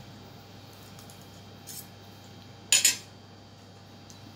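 Cutlery clinking against a plate during a meal: a faint clink, then a louder, sharp double clatter near the middle.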